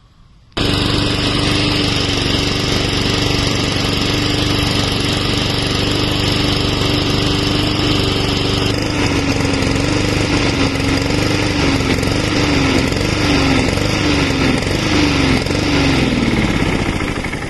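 Honda GCV160 single-cylinder lawnmower engine running with the fuel valve shut to burn off the fuel left in it. It runs steadily at first, then from about halfway it surges up and down as the carburettor runs dry, and near the end it slows and dies away.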